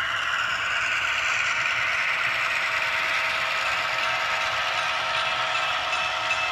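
HO-scale model diesel locomotives, an Athearn GP-15-1 and an Atlas MP-15, rolling past close by: a steady mechanical whirr of their motors and gear drives with the wheels running on the track.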